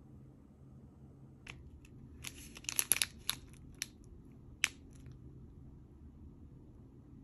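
Sealed plastic wrapper of a rice-cracker snack packet crinkling as it is picked up and handled. It makes scattered sharp crinkles, thickest between about two and three seconds in, with a last sharp one just before five seconds, over a faint steady room hum.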